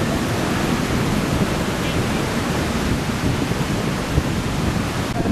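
Steady, even rushing noise across the whole range, heavy in the low end, typical of wind and surf at a beachfront.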